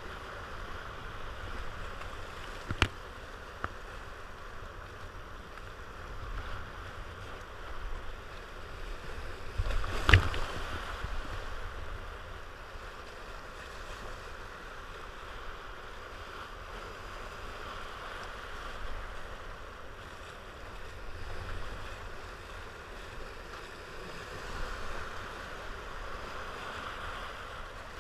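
Rushing whitewater of a river rapid around a kayak as it runs the rapid, with a few sharp knocks, the loudest about ten seconds in.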